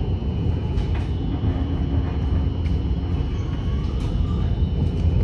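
Tram running, heard from inside the car: a steady low rumble of wheels on rails, with a faint steady high whine and a few light clicks.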